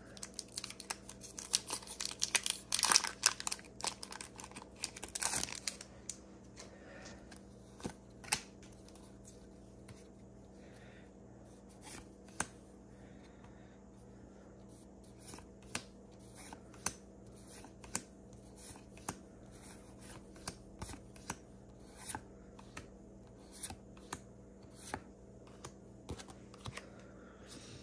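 Foil booster-pack wrapper crinkling and tearing open for about the first five seconds, then the short, soft flicks of trading cards being slid from the back of the stack to the front, roughly one a second.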